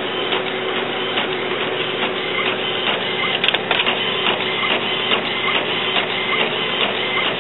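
Epson WorkForce 840 inkjet printer printing a test page: the print-head carriage shuttles back and forth across the paper with steady mechanical noise and a regular quick clicking. There is a sharper click about three and a half seconds in.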